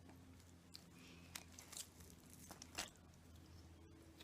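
Near silence with a few faint clicks and smacks of someone eating, over a low steady hum.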